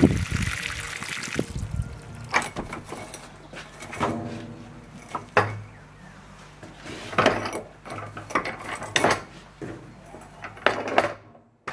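Water splashing onto gravel for about the first second and a half, then a series of about six metallic clanks and knocks, some briefly ringing, as the stationary engine on its iron wheeled trolley is moved.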